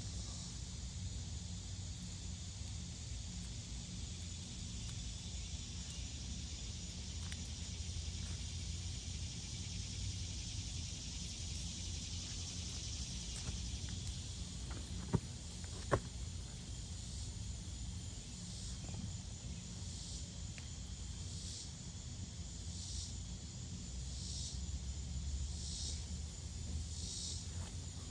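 Outdoor garden ambience: a steady high insect hiss that turns into regular pulsing trills in the second half, over a low rumble, with two sharp clicks about fifteen and sixteen seconds in.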